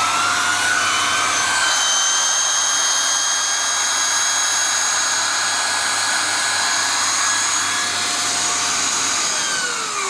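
Hoover Xarion bagless canister vacuum cleaner running with a steady high whine and rush of air, its pitch settling upward in the first couple of seconds after switch-on. Near the end it is switched off and the motor winds down, its whine falling in pitch.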